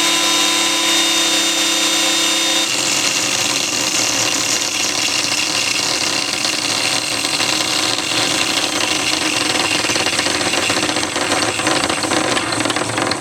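Electric motor from a pressure washer running with one bearing completely worn out. A steady whine with several tones turns rougher and noisier about three seconds in, and the rattle grows toward the end as the failing bearing runs on.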